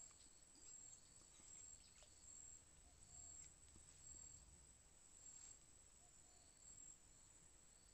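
Near silence: faint outdoor ambience with a high, steady insect trill that pulses now and then.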